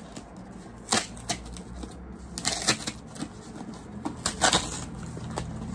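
A mail package being opened by hand: the packaging rustles and scrapes in short, irregular bursts, the loudest about four and a half seconds in.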